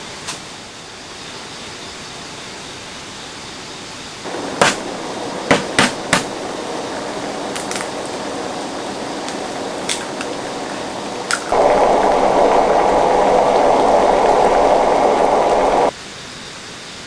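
Instant ramen noodles cooking in broth in a small frying pan over a gas stove burner. A steady hiss steps up in level about four seconds in, with a few sharp clicks. From about eleven seconds in comes a louder, steady boil that cuts off suddenly a second before the end.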